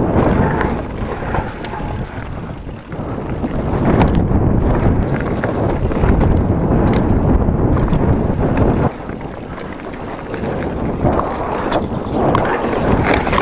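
Wind buffeting the camera microphone over the rumble and rattle of a Giant Trance 1.5 27.5" full-suspension mountain bike riding a dirt forest trail. Sharp knocks and rattles come in the last second or so.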